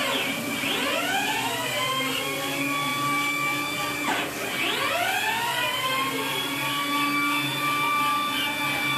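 Stepper motors of a Torchmate 4x4 CNC plasma table whining as they drive the gantry and torch head along a cutting pattern on a dry run with the torch off. Their whine slides down and back up each time the head slows and changes direction, most sharply about four seconds in.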